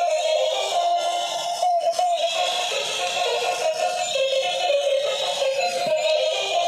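Battery-operated walking animal toys playing their built-in electronic tunes: a tinny, stepping synthesized melody with a chip-like singing voice that runs without a break.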